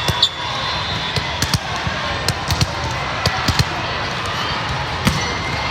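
Volleyballs being hit and bouncing on a gym floor, about ten sharp thuds scattered through, over a steady background of crowd chatter.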